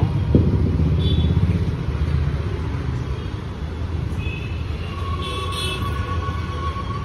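Steady low rumble of a motor vehicle running nearby, with a faint thin steady tone joining in over the last couple of seconds.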